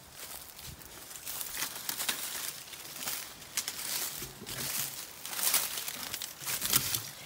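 Footsteps crunching and rustling through dry fallen leaves and brush, in a string of uneven crackly steps.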